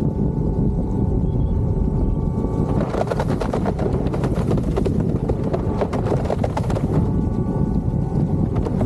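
An eFoil board running across the water: a steady rush of wind and spray, with the electric motor's steady whine coming through for the first few seconds and again near the end.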